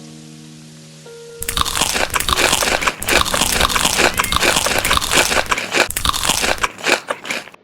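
Close, loud crunching of someone biting and chewing crisp food, a dense run of crunches that starts about a second and a half in. Soft music notes play before it.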